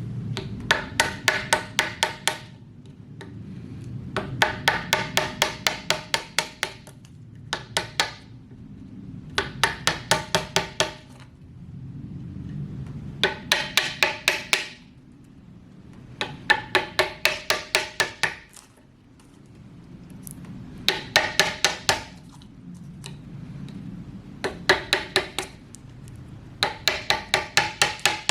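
A hammer striking a steel chisel in runs of rapid blows, about four or five a second, each blow ringing, with short pauses between runs: chopping out the waste between auger holes to square a mortise in a 6x6 timber.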